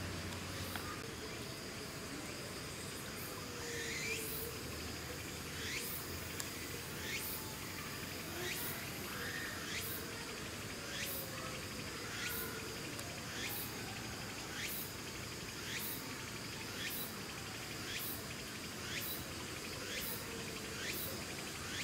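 Insects calling: a steady high trill, and from about four seconds in, a short high chirp repeating about every 0.7 s.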